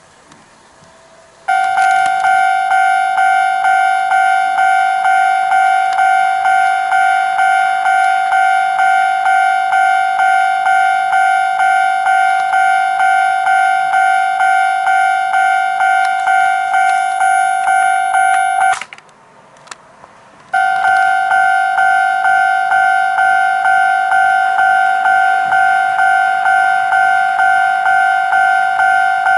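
Toy level-crossing warning device on a model railway layout, ringing a repeated electronic crossing-bell ding at about two strikes a second. It stops for about two seconds near the middle, then starts again.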